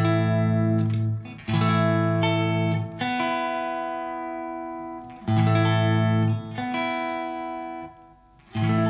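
Electric guitar chords played through a KOR Vibekorus chorus pedal. The chords change every second or two, and some are left to ring and fade out, with a short lull just before the end.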